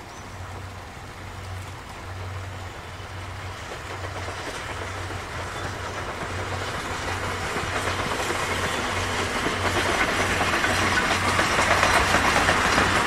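JNR Class D51 2-8-2 Mikado steam locomotive hauling a passenger train by, drawing closer and growing steadily louder, with a low regular beat under a rising rush of wheel and rail noise.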